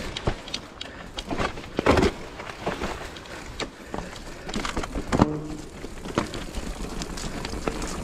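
Mountain bike rattling and clattering over a rocky trail, irregular knocks from the frame and handlebars as the wheels hit stones, with a low wind rumble on the handlebar-mounted microphone.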